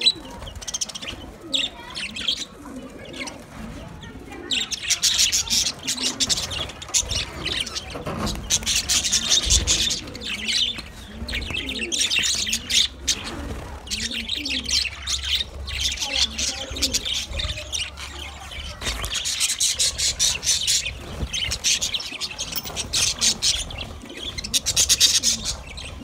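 A flock of budgerigars chattering and warbling together, a continuous mass of quick high chirps that grows denser about four seconds in.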